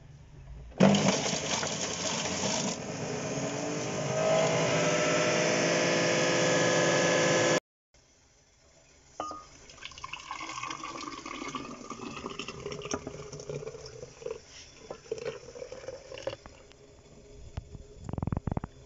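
Fresh orange juice poured and splashing into a glass jug as it fills. The pour is loud and splashy for the first several seconds, stops abruptly, then goes on as a quieter, steadier trickle.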